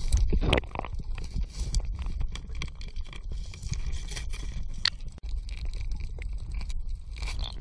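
Underwater recording: a steady low rumble of water moving around the camera, with many short scattered clicks and crackles.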